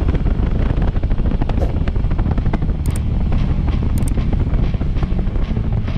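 Small Suzuki motorcycle's engine running steadily while riding, a dense rapid train of exhaust pulses heard from the handlebars.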